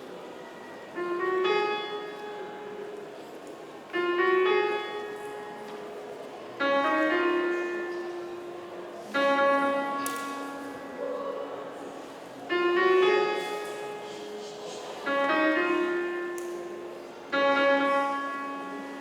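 Piano playing a slow run of seven full chords, one struck about every two and a half seconds and left to ring and fade, as an introduction before the choir comes in.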